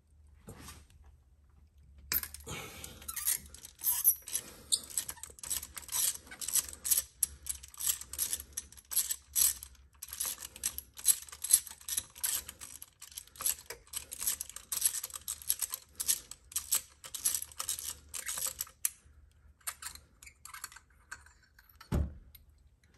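Ratchet wrench with a spark plug socket clicking in quick runs as it is worked back and forth, backing a spark plug out of the engine head. A dull knock near the end.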